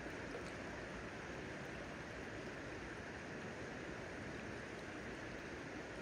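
Steady rushing of a shallow, rocky river flowing past.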